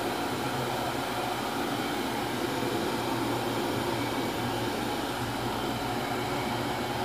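Bosch stainless-steel electric kettle heating water, a steady hiss and rumble. It stays on instead of cutting out seconds after switching on, now that the steam-operated cut-off strips have been adjusted.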